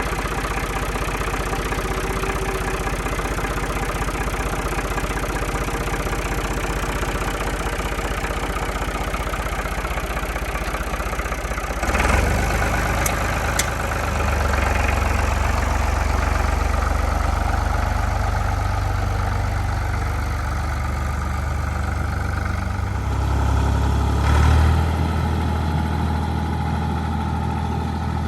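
Old New Holland tractor engine idling steadily. About twelve seconds in a sharp knock is followed by the engine running louder, with a brief swell near the end.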